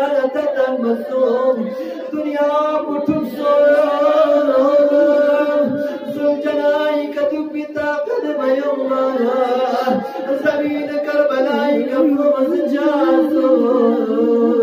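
A man's solo voice chanting a melodic lament through a microphone, holding long notes with ornamented turns and pausing briefly for breath.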